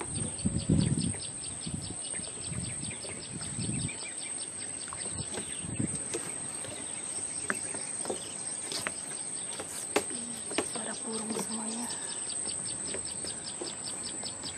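Outdoor ambience with a fast, evenly repeated series of high chirps, about four a second, from small wildlife. Low rumbles on the microphone come and go in the first few seconds.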